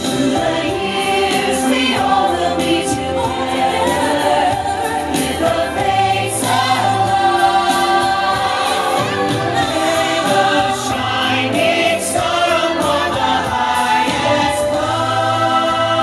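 Christmas show soundtrack: a choir singing over music, with no words picked out.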